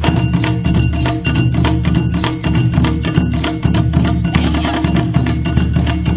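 Upbeat music driven by a dense, fast clacking percussion beat over a steady bass line.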